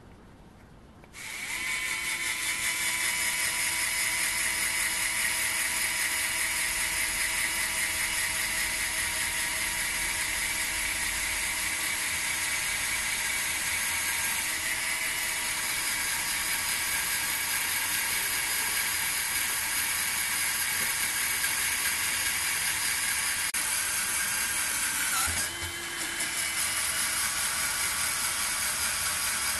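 WORX WX240 mini electric screwdriver's small motor and gearbox running under load, turning a drill bit into a square steel tube. It starts about a second in and runs as a steady whine, dips briefly near the end, then picks up again.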